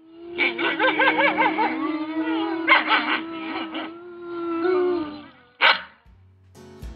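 An agitated wolf pack howling and barking: one long, steady howl runs under a chorus of quavering yips and sharp barks, with a last single bark near the end. Music starts just before the end.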